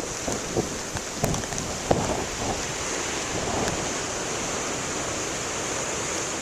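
Ocean surf washing steadily under a nor'easter's wind, with wind noise on the microphone. A few light knocks come in the first couple of seconds.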